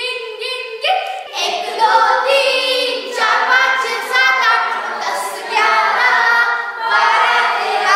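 Children's voices singing a song together in chorus, without instruments.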